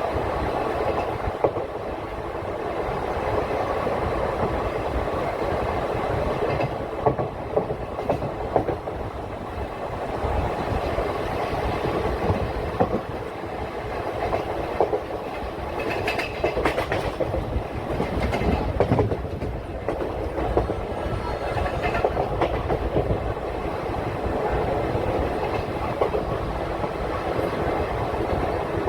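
Train running along the track: a steady rumble of the wheels on the rails, with the clickety-clack of wheels passing over rail joints, which comes thicker at times.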